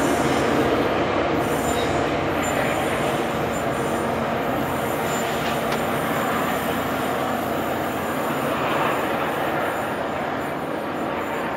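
NJ Transit commuter train pulling away along the rails, its running noise slowly fading, with a faint high wheel squeal near the start.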